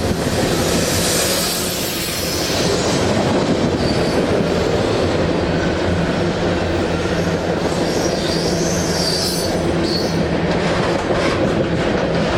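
Freight cars rolling past at track side, steel wheels clacking over rail joints, with brief high wheel squeals now and then.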